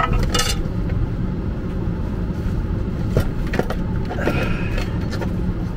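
Short clicks and rustles of plastic food containers and cooking things being handled, over a steady low rumble.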